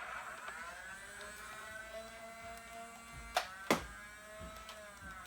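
Nerf blaster firing a homemade screw dart: a sharp snap, then about a third of a second later a second knock as the dart strikes the target. A faint hum that slowly shifts in pitch runs underneath.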